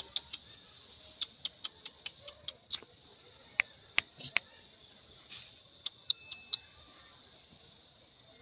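About twenty irregular sharp clicks and taps, the loudest three around four seconds in, stopping about six and a half seconds in, over a steady high-pitched hum.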